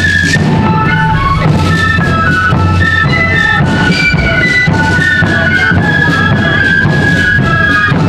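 Marching flute band playing a tune: many side-blown flutes in unison carrying the melody over a steady drum beat.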